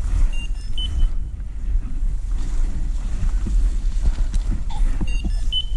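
Wind buffeting the microphone: a loud, steady low rumble. Brief high chirps come about half a second in and again near the end.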